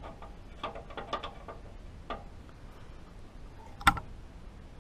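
Light clicks and taps of hands handling a motorcycle fuel line and its fittings, a small cluster early on and one sharper click near the end.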